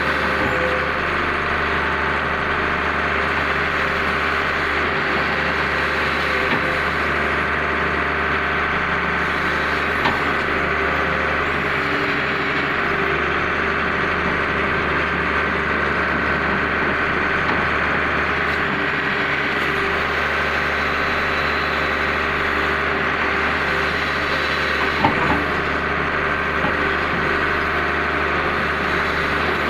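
Hydraulic excavator's diesel engine running steadily under digging load, heard from inside the cab. A few brief knocks stand out, the loudest about three-quarters of the way through.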